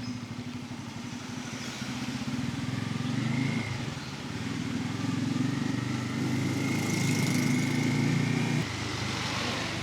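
Bajaj Pulsar N250's single-cylinder engine running under way, its note rising and falling with the throttle and dropping off suddenly about a second before the end.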